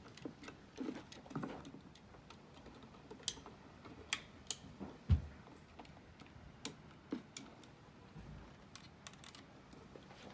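Scattered small clicks and taps of a screwdriver and switch hardware as a wall light switch is fitted, with a louder knock about five seconds in.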